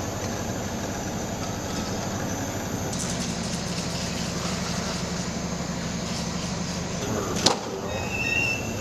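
A steady low mechanical rumble and hum, with one sharp click about seven and a half seconds in.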